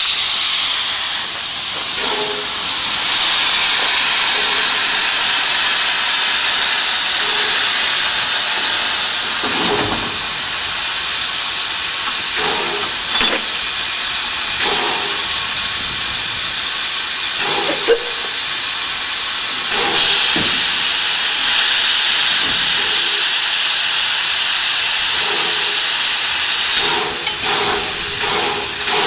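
Narrow-gauge steam tank locomotive standing and venting steam with a loud, steady hiss, with a few short knocks of metal work against it.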